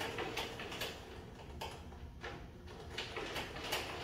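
Light mechanical clicks and taps, about one every half second to a second, from a table saw and its crosscut sled being set up by hand while the saw is not running.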